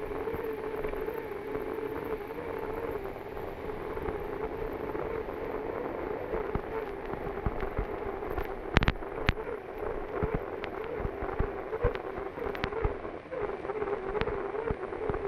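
Unlimited hydroplane's Lycoming T55 turbine engine running at speed, heard onboard as a steady wavering whine over rushing noise. Sharp knocks come in the second half, the loudest about nine seconds in.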